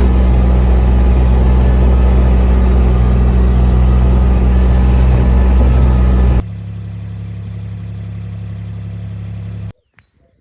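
An engine running steadily with a low, even hum. It drops suddenly to a quieter level about two thirds of the way through, then cuts off abruptly near the end.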